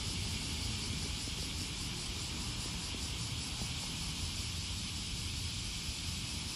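Steady outdoor background noise: a low rumble with an even high hiss over it, unchanging throughout.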